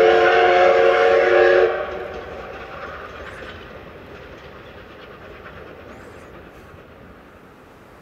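Steam locomotive whistle sounding a loud blast of several tones at once, which cuts off about two seconds in. After it, the running noise of the double-headed C11 and C10 steam train fades steadily into the distance.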